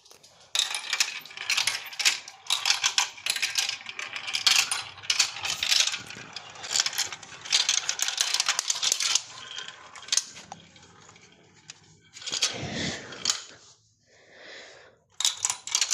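Marbles rolling and clattering down a marble run track: dense, rapid clicking and rattling that thins out after about ten seconds, followed by two shorter bursts of clatter near the end.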